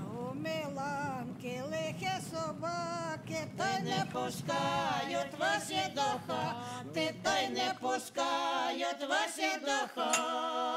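A traditional Ukrainian folk song sung by a group of men's and women's voices without instruments, ending on a held chord. A low rumble runs underneath and stops near the end.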